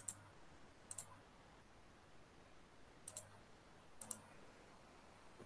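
Sharp clicks at a computer, about four of them spaced roughly a second apart, a couple doubled, with faint room noise between.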